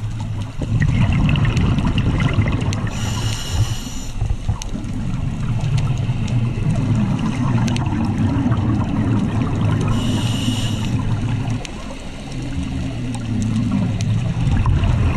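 Scuba regulator breathing heard underwater: a long low rumble and gurgle of exhaled bubbles, broken twice by a short hiss of inhalation through the regulator, about 3 seconds in and again about 10 seconds in.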